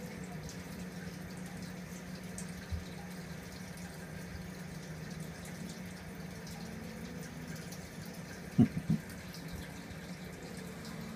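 Reef aquarium's circulating water running and dripping over a steady low pump hum. About three-quarters of the way through come three quick soft low knocks, the loudest sounds here.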